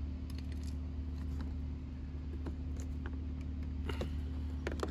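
Light clicks and taps of a plastic fog light bezel being worked loose from a truck's front bumper by hand, over a steady low hum.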